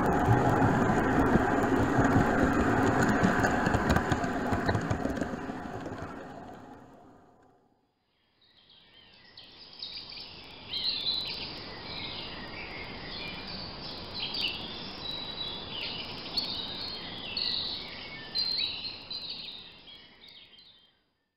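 An OO-scale model train running along the layout track, heard from the camera car riding on it, fades out over several seconds and stops. After a short gap, birds chirp busily over a steady hiss of running water.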